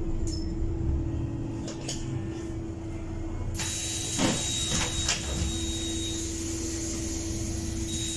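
Interior of a Heuliez GX337 natural-gas articulated bus: a steady low engine drone with a constant hum and a few knocks and rattles. About three and a half seconds in, a hiss with a thin high whistle starts suddenly and keeps going.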